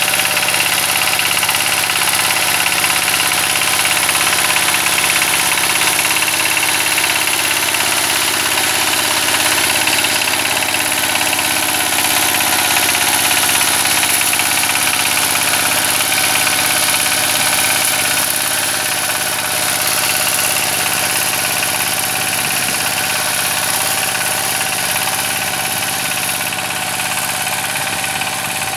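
ZUBR 12 hp walk-behind tractor's single-cylinder diesel engine running steadily under load while driving a rotary tiller through garden soil. It grows a little quieter over the last ten seconds as the machine moves away.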